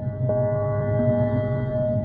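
Electronic emergency-alert alarm tone: several steady pitches held together like a ringing chord, re-struck about every two seconds over a pulsing low hum.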